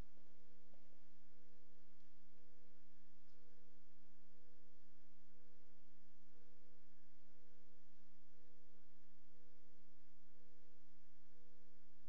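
Steady low electrical hum made of several tones, with a faint higher tone pulsing on and off about one and a half times a second.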